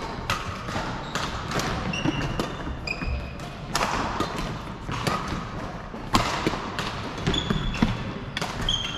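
Badminton play in a large hall: sharp racket strikes on shuttlecocks at irregular intervals, with short high squeaks of court shoes on the wooden floor and thudding footfalls.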